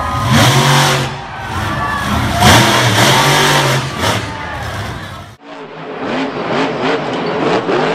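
Monster truck engine revving hard, its pitch surging up and down in repeated bursts. About five seconds in there is an abrupt cut to another monster truck's engine revving, a little quieter.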